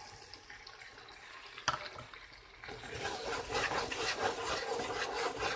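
Hot oil and butter sizzling and crackling in a pot around freshly added popcorn kernels, faint at first with a single click, then a denser crackle setting in just under halfway through.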